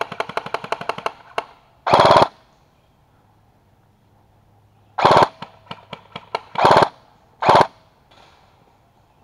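Airsoft rifle fire: a fast stream of shots through the first second, then four short full-auto bursts, very loud and close, about two seconds in, at five, near seven and at seven and a half seconds, with a few single cracks between them.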